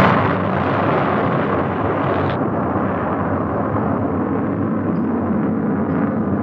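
Rocket exploding at its launch pad: a sudden loud blast at the start, then the continuous rumbling roar of the burning fireball.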